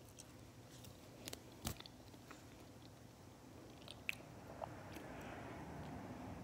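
A person chewing pan-fried Sriracha potato pieces, faint, with a few small sharp clicks.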